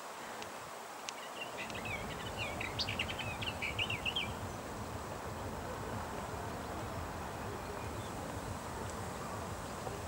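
A small warbler singing one short phrase of quick, varied high notes, starting about a second in and lasting some three seconds, over a low steady rumble.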